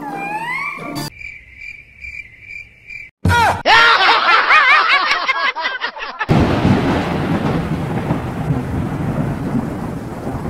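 A string of edited sound effects: gliding tones, then a pulsing high beep for about two seconds, then a loud warbling burst. From about six seconds in, a steady rush of rain with low thunder rumbling.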